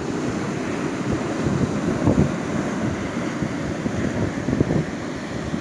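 Wind buffeting the microphone over the steady wash of surf on a beach.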